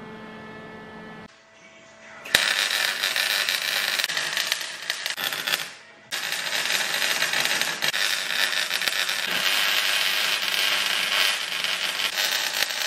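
MIG welder crackling as beads are run along the seams of a sheet-steel box. It comes in two runs: one starts about two seconds in, stops briefly just before six seconds, and a longer run follows.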